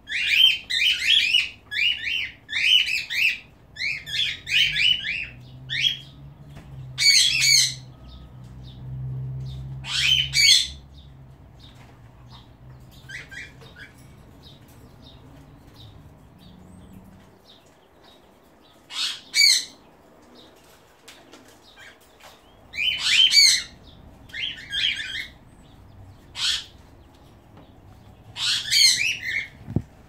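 Pet cockatiels and another small parrot calling: quick runs of shrill chirps, dense in the first few seconds, then short scattered bouts with pauses between. A faint low hum sits underneath through the first half.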